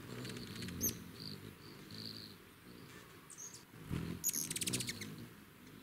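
Hummingbird wings humming close by as birds hover at a feeder, with short high squeaky chip calls. About four seconds in there is a louder burst of fast chattering.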